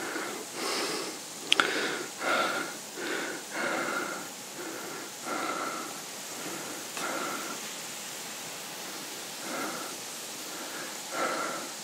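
A hiker's footsteps crunching on a path, one to two steps a second, pausing after about seven seconds and picking up again near the end.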